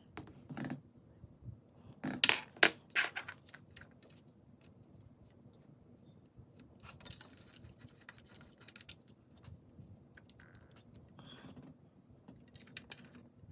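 Small hard clicks and taps of metal mounting hardware being handled and fitted, with a cluster of sharper knocks about two to three seconds in, then faint scattered ticks.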